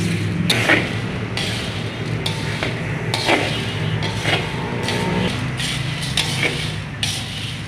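Coffee beans being stirred and turned in a pan with a spatula during manual roasting: repeated scraping, rattling strokes about every half second to a second, over a steady low hum.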